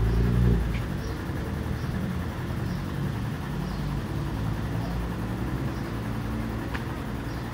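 A motor vehicle engine running steadily with a low hum amid street traffic, louder for the first moment or so.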